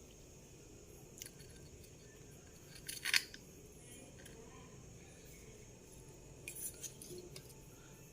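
A few light clicks and clinks of small hard parts or tools being handled, the loudest a short clatter about three seconds in and a cluster of lighter clicks near the end.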